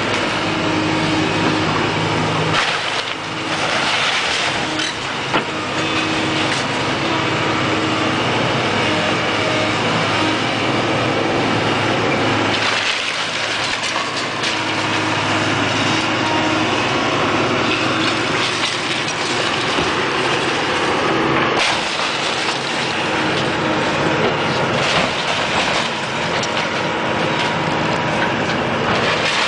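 A heavy demolition machine's engine running steadily, with clattering and knocks over it. The sound shifts abruptly a few times.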